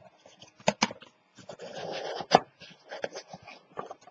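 Chipboard inserts being pushed and fitted into a covered cardboard box: a few sharp taps and knocks, with a short scraping rub of board against board between them. The sharpest knock comes a little past the middle.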